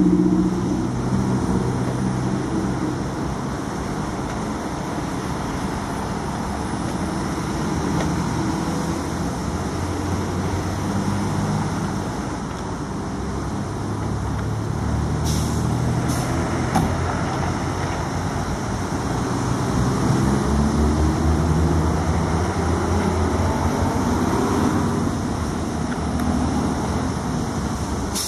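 Heavy diesel vehicle engines running and motorway traffic going by in a steady rumble. There are a few short clicks about halfway through.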